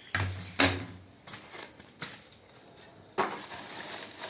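Vacuum cleaner parts and their packaging being handled while unpacked. Two sharp plastic knocks come just after the start, then a few light ticks, then rustling packaging for the last second or so.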